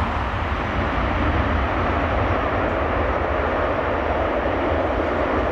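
Airbus A330 airliner's jet engines making a steady rumble as the plane rolls out along the runway after landing.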